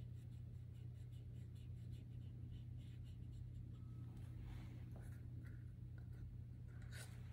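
Faint, scratchy drawing strokes on pastel paper, many short strokes in a row with a stronger one near the end, over a steady low hum.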